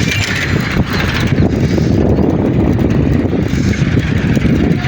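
Steady low rumble of wind buffeting the microphone of a bicycle rider on the move, with faint road and bike noise underneath.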